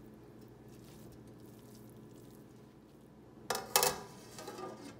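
A stainless steel lid is set down onto a stainless steel cooking pot, giving two sharp metal clanks about three and a half seconds in, a quarter second apart, with a brief ring and a few fainter clinks after.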